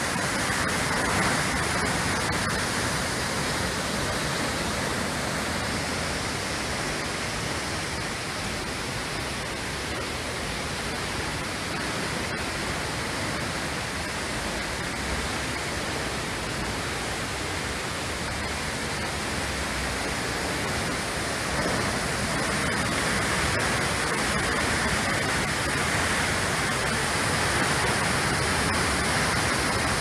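Waterfall plunging into its pool: a steady, unbroken rush of falling water, a little louder near the start and again in the last third.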